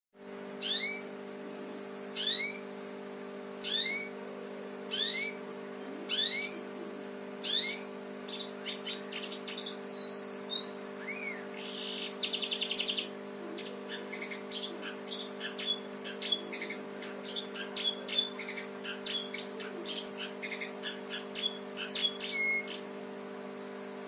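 Domestic canary singing a house-sparrow-like song: six rising chirps about a second and a half apart, a short fast buzzy trill, then a long run of quick short chirps. A steady low hum runs underneath.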